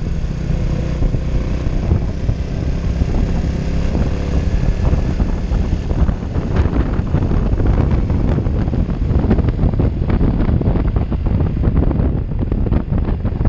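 Honda Innova's 125 cc single-cylinder four-stroke engine running steadily at low speed on a steep climb, with heavy wind buffeting on the microphone.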